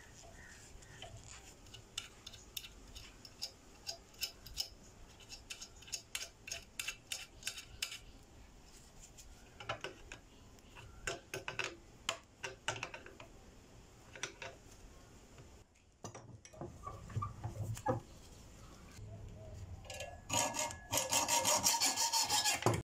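Small metal clicks and scrapes as pliers turn a nut down against a washer on a threaded steel rod. Near the end come fast, even rasping strokes of metal on metal at the rod clamped in a vise, the loudest part.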